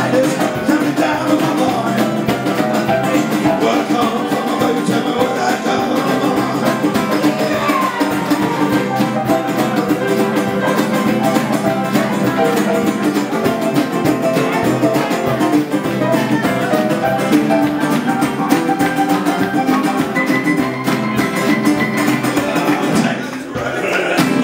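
Live band playing: banjo, drum kit and upright piano together. The loudness dips briefly near the end.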